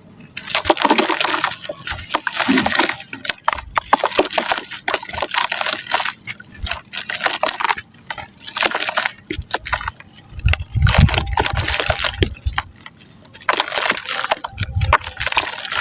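Soft mud crumbling and breaking up in water, in about five bursts of crackling and sloshing with many small sharp crunches. Deep thuds come around two thirds of the way through and near the end.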